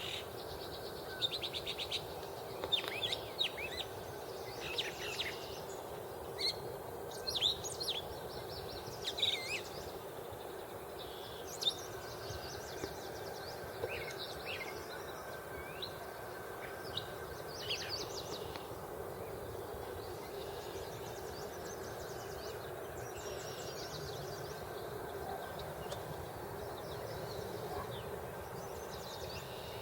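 Several songbirds singing and calling in an open field, including a northern mockingbird, with short, varied phrases thick in the first half and thinning out later. A steady low background rush runs beneath the birdsong.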